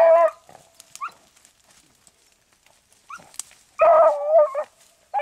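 Beagle hounds baying on a rabbit's trail: long, drawn-out pitched bays, one at the start, another about four seconds in, and a third just beginning at the end, with a few short faint yips between.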